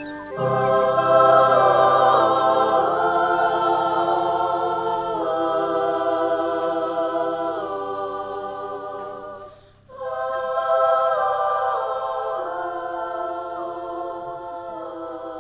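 Background music of wordless, choir-like voices holding sustained chords that change slowly, with a brief break about ten seconds in before the chords resume.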